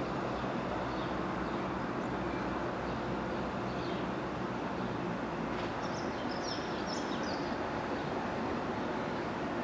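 Class 170 Turbostar diesel multiple unit's underfloor engines running as it pulls away down the line, a steady low rumble. Birds chirp briefly about six seconds in.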